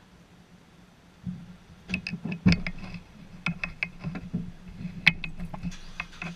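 Irregular sharp clicks and knocks over a steady low hum, beginning about a second in, with the loudest knocks about two and a half and five seconds in.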